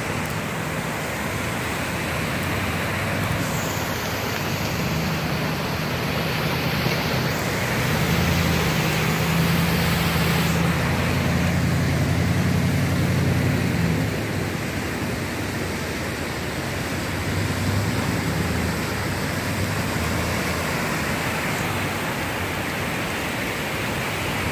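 Steady rushing noise of rain and running floodwater, with a vehicle driving through the flooded road; its low engine and tyre rumble is loudest from about 8 to 14 seconds in.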